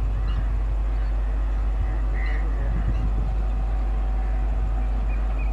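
Approaching express train hauled by an electric locomotive: a steady low rumble with a faint steady hum over it. A short high chirp sounds a little over two seconds in.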